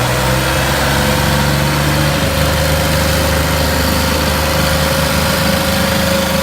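Tractor diesel engines running hard under load, pulling against each other in a tochan tug-of-war. A steady engine drone whose low note shifts about two seconds in.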